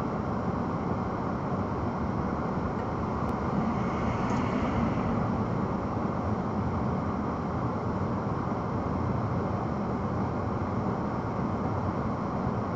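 A steady low rumble inside a stopped car's cabin, typical of its engine idling.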